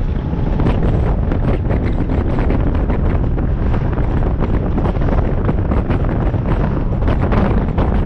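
Wind buffeting the microphone of a bonnet-mounted action camera on a moving car: a loud, steady rush with constant gusting flutter, covering the car's own running sound.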